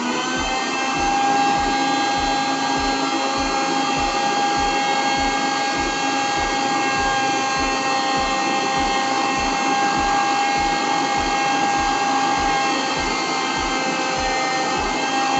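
Electric mixer-grinder with a steel jar running, a steady motor whine after briefly coming up to speed at the start, churning collected cream (malai).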